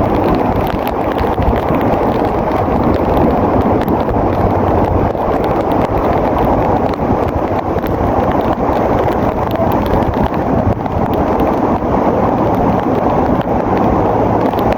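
Bulldozer working, its diesel engine running steadily under load.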